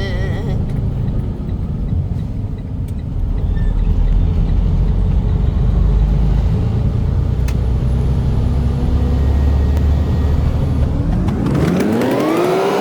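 Semi-truck's diesel engine and road noise, a steady low rumble from the moving rig. Near the end a pitched tone rises and then falls.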